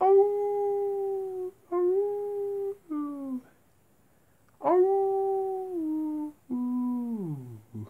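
Wolf-style howling: about five howls with short gaps, each held on one pitch and then falling, the last one sliding steeply down near the end.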